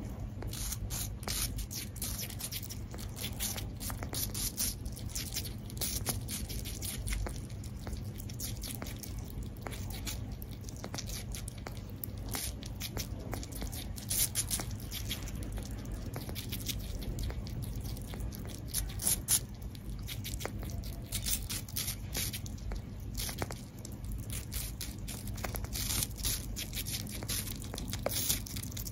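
Two sugar gliders nibbling a piece of crisp apple: many small, sharp crunches and wet bites in quick, uneven succession, over a low steady hum.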